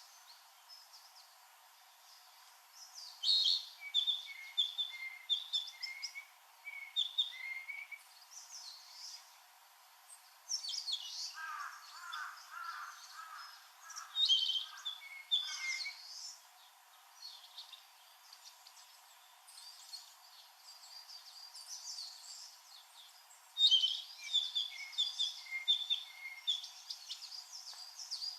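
A male Narcissus Flycatcher singing light, flute-like whistled phrases of repeated clear notes, in three bouts. Other songbirds sing higher-pitched songs in the background, and a lower series of notes joins in for a few seconds in the middle.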